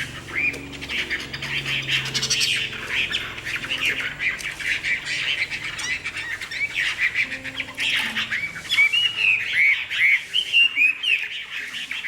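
Caged fighting songbird giving a rapid run of short, harsh chirping calls, a sign of its aggression toward a rival bird. The calls come thicker and louder near the end.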